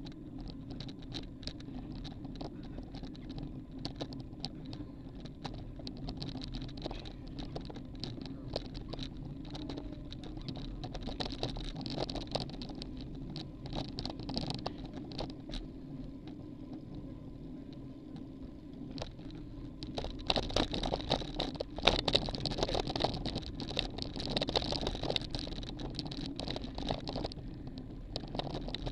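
Road bike rolling over rough pavement, heard through a bike-mounted camera: a steady tyre hum with many small rattling clicks and knocks from the bike and mount, busier and louder about twenty seconds in.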